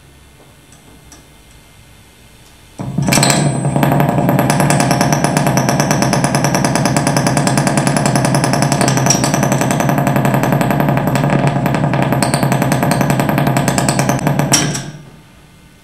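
Loud, harsh buzzing drone with a fast rattling pulse from a portable cassette radio, starting abruptly about three seconds in and cutting out near the end as the player's buttons are worked.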